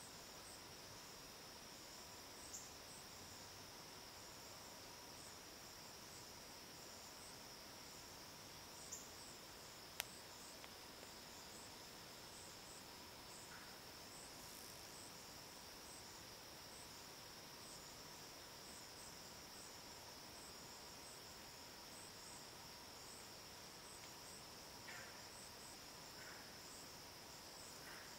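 Faint evening insect chorus: a steady high trill with regular chirps about twice a second above it. A single sharp click sounds about ten seconds in, and a few short faint calls come near the end.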